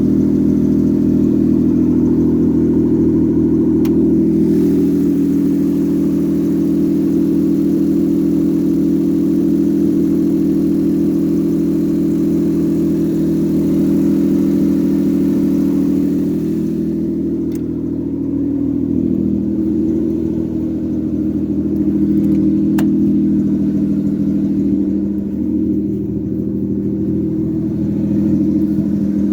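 Mitsubishi car engine running after a top-end rebuild, idling steadily. From about 17 seconds in its pitch wavers up and down a little, with light changes in throttle.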